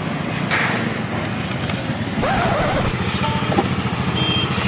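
Small petrol motor scooter engine running at low revs, a steady, evenly pulsing putter.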